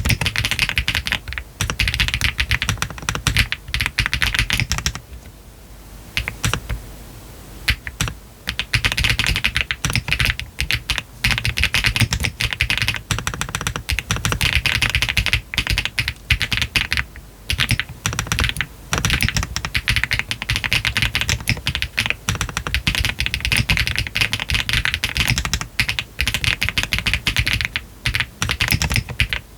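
Steady typing on a Meletrix ZOOM TKL custom mechanical keyboard with Yogurt switches on a PC flex-cut plate, with PBT cherry-profile keycaps and the case foam taken out. It is a fast stream of keystroke clacks, with a short pause about five seconds in.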